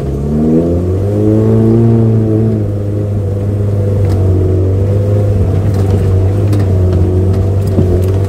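A Suzuki Jimny Katana's engine pulling along a muddy dirt trail. The revs climb over the first two seconds, ease off around three seconds in, then hold fairly steady.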